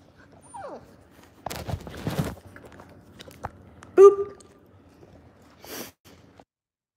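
Six-week-old Labrador puppy mouthing and chewing right at a phone's microphone, with rubbing and handling noise. A short pitched sound cuts in about four seconds in, the loudest moment.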